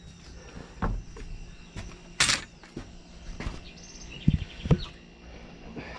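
Outdoor farm ambience: scattered bird chirps and insect noise over a steady low hum, with a few knocks and one short, loud, rasping burst about two seconds in.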